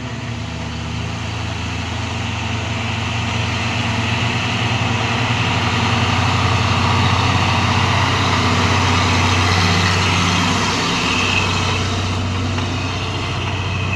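Diesel engine of a loaded Hino Ranger truck running steadily under load as it climbs past, growing louder to a peak partway through and then easing off.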